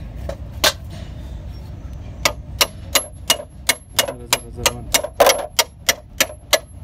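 Hammer tapping metal on a gearbox shaft in the FM 8J gearbox casing, seating the shaft and bearing. There is a single tap, then from about two seconds in a steady run of light taps, about three a second, each with a faint high metallic ring.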